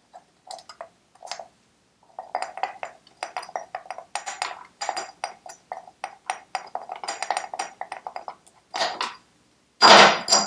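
Hand ratchet clicking in quick, irregular runs of metallic clicks as the two 11 mm nuts holding the points box on a Citroën 2CV engine are undone. Near the end there is a single, louder metallic clank.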